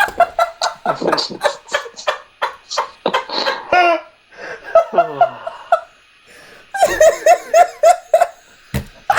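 Hearty laughter in rapid, repeated bursts. It breaks off for a moment about midway and starts up again about seven seconds in.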